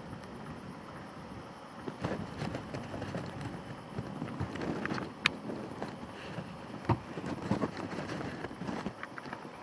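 Thunder from a nearby lightning strike. It begins about two seconds in and rolls on for some seven seconds, with several sharp cracks among the rumble, then fades back to a steady background hiss.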